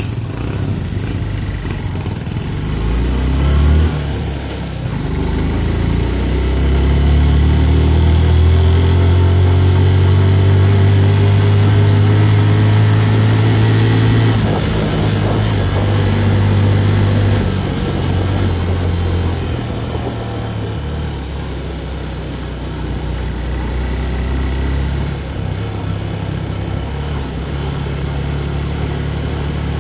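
Motorcycle engine pulling away and accelerating, its pitch climbing steadily for about ten seconds. About halfway through the pitch drops suddenly, and the engine settles into a lower, steadier run for the rest.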